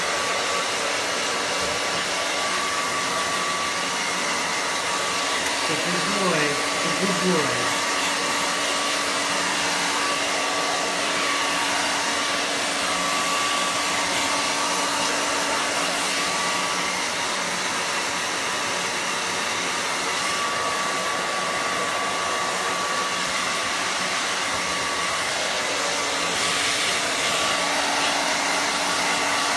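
Handheld hair dryer running steadily, blowing over a freshly bathed dachshund's coat: a constant rush of air with a steady hum and whine.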